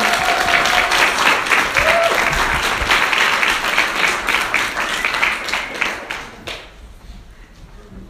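Room of people applauding, a dense run of clapping that dies away about six and a half seconds in.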